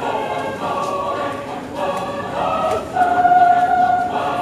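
Mixed choir of men's and women's voices singing long held chords, swelling louder on a sustained chord about three seconds in.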